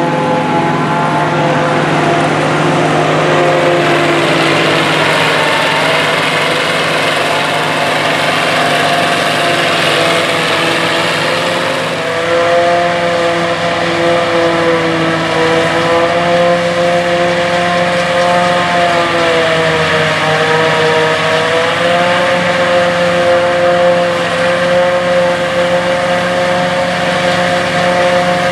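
Sperry-New Holland 1880 Crop Cruiser self-propelled forage harvester chopping corn, running steadily under load with a whine that dips slightly in pitch now and then, mixed with the engine of the tractor pulling the silage wagon alongside. About twelve seconds in the sound shifts as the view moves from the wagon side to the wider field.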